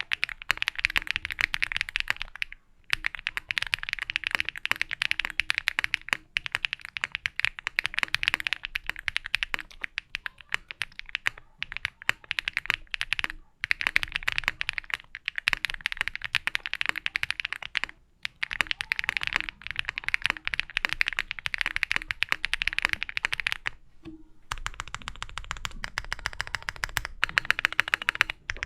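Mechanical keyboard being typed on in fast runs of crisp keystrokes, broken by several short pauses.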